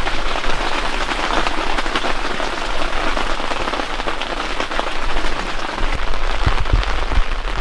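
Steady heavy rain falling, a dense crackling patter of many drops, with a few low bumps near the end.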